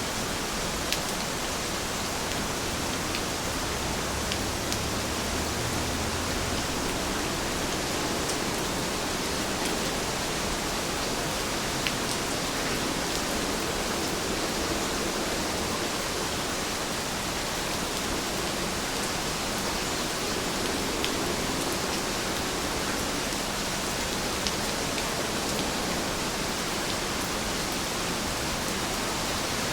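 Steady rain: an even hiss of falling rain, with a few faint drop ticks now and then.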